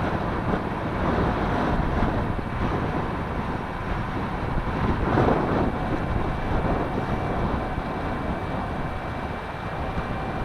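Wind buffeting the microphone as a steady rushing noise, with a faint steady high whine underneath.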